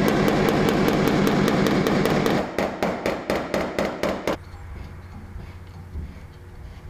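A PDR blending hammer tapping fast and lightly on the truck bedside's sheet metal, about six taps a second, then slower scattered taps that stop about four seconds in. It is knocking down the raised crown beside the dent while the glue-tab puller holds tension, so the low metal can move out.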